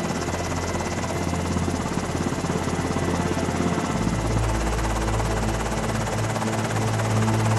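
Helicopter rotor chop, fast and steady, over background music with sustained low notes that shift about four seconds in.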